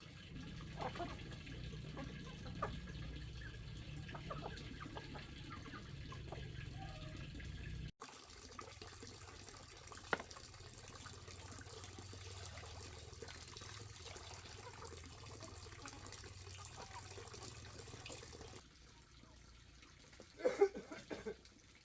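Water running and trickling, with a few faint knocks. The sound breaks off abruptly about eight seconds in and resumes much the same, then drops quieter near the end.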